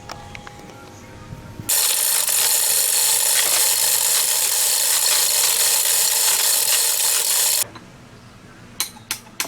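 A power tool runs loudly and steadily for about six seconds, starting and stopping abruptly. Near the end, sharp metallic taps follow at about two a second, like a hammer striking metal while a part is driven out.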